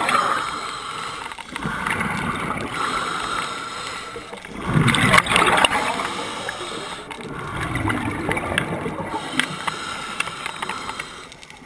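Underwater water noise on a camera in a housing: a steady rushing with surges of bubbling and gurgling every few seconds, fading near the end.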